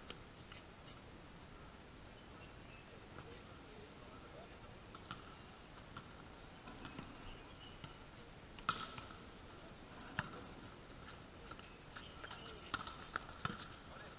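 Sharp slaps of a volleyball being hit in play: one about nine seconds in, another about a second and a half later, and several quick hits near the end. They sit over a faint background with a steady high tone.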